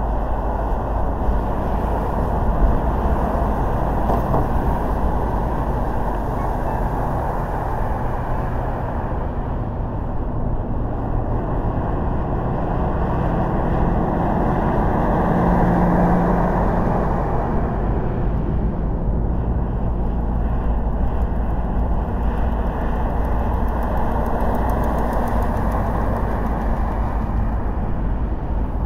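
Steady road noise of a car driving, a rumbling hiss of tyres and engine. It swells for a few seconds around the middle with a brief low hum.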